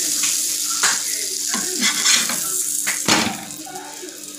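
Burger bun frying in butter on a flat iron tawa, sizzling steadily, with several clicks and scrapes of a steel spatula pressing it against the pan. The sizzle dies down somewhat near the end.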